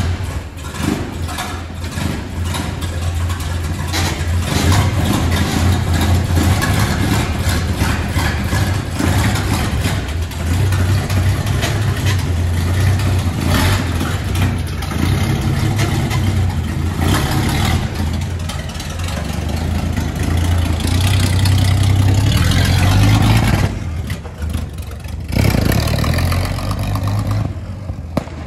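Buda inline-six flathead petrol engine of a 1924 Maxim fire engine running just after being started for the first time in over 50 years. Its revs rise and fall several times, and it drops back near the end.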